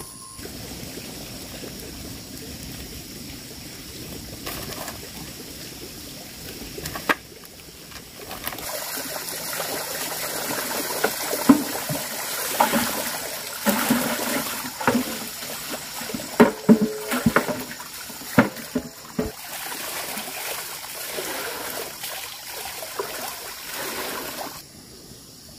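Water pouring and splashing, with a run of sharp knocks and clatter in the middle.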